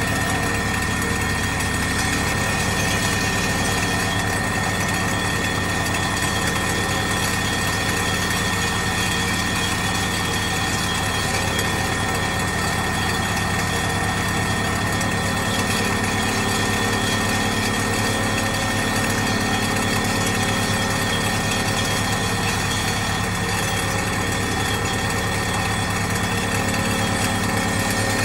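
ThyssenKrupp MS-10 vibratory pile hammer running steadily on a steel pile, with its hydraulic drive droning and a fast, even low pulsing throughout.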